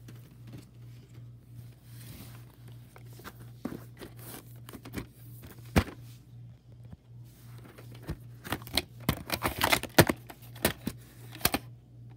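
Plastic VHS clamshell case being handled and opened and the cassette taken out: rustling and crinkling of the plastic, with a sharp click about six seconds in and a run of clicks and knocks from about eight to eleven seconds, over a low steady hum.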